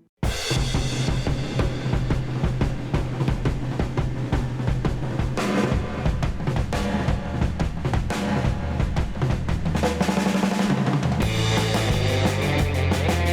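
Background rock music with a driving drum kit beat, starting abruptly after a moment of silence.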